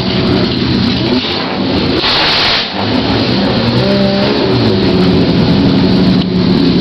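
Classic race car engines running at low speed in the paddock, their pitch rising and falling as the throttle is blipped. A short rushing noise comes about two seconds in.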